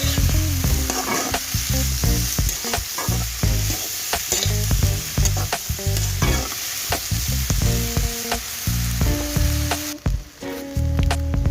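Mixed vegetables sizzling in hot oil in a kadai (wok) while a spatula stirs them, with repeated clicks and scrapes of the spatula against the pan.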